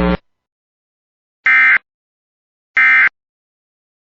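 Emergency Alert System end-of-message data bursts: two short, identical buzzy digital tone bursts about 1.3 seconds apart, marking the close of the alert. A steady drone cuts off just at the start.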